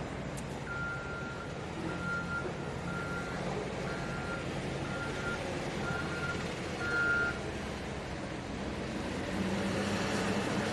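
A vehicle's reversing alarm beeping about once a second, seven times, then stopping, over the steady low hum of an engine.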